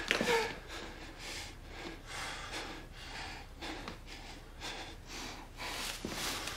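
A person breathing heavily, quick audible breaths at about two a second.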